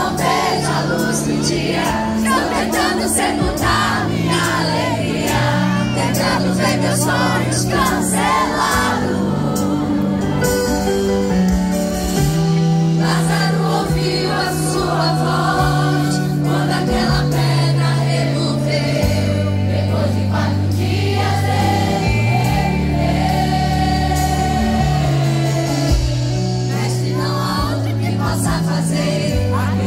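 Live gospel music from a band with electric guitars, keyboards and drums under a female lead singer, with many voices singing along. Moving bass notes run underneath the sung melody.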